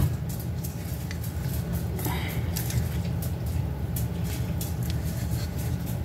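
Silicone spatula scraping sticky honey out of a measuring cup, a few faint soft scrapes, over a steady low hum that sets in suddenly at the start.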